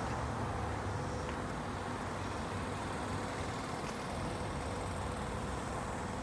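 Steady low rumble of outdoor background noise, with a couple of faint ticks.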